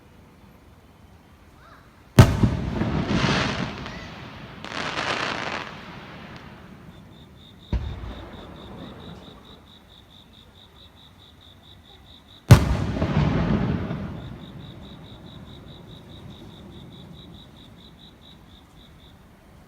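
Aerial fireworks shells bursting: two loud sharp booms, about two seconds in and about twelve seconds in, and a smaller bang near eight seconds. Each trails off in a long echoing tail, and after the first come two swelling waves of crackle.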